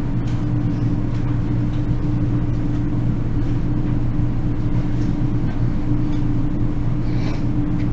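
A steady low electrical or fan hum, with faint scratches of a pen writing on paper.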